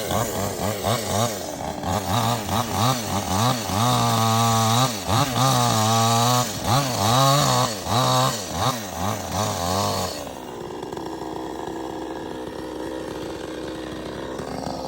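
Chainsaw cutting palm wood, its engine pitch rising and dipping over and over as the chain bites and frees. About ten seconds in it drops to a quieter, steady idle.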